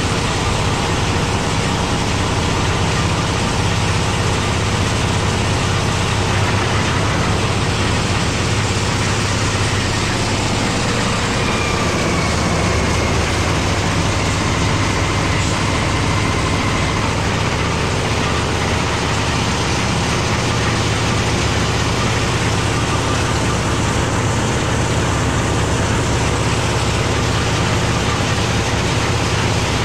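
Site concrete mixer with a skip loader, its engine running steadily at a constant loud level and driving the mixing drum.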